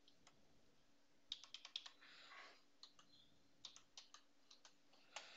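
Faint keystrokes on a computer keyboard, in two short quick runs of clicks, as a terminal command is typed.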